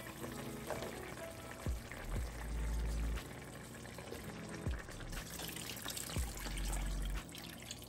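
Chopped carrots and potatoes tipped into a steaming pot of simmering chicken stew, then water poured in from a glass measuring cup near the end, with a steady bubbling hiss from the pot. Background music with a deep bass beat plays throughout.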